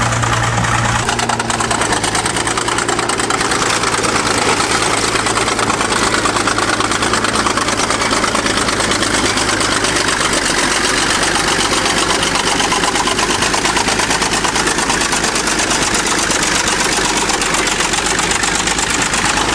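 1953 International TD-20 crawler dozer's diesel engine running steadily.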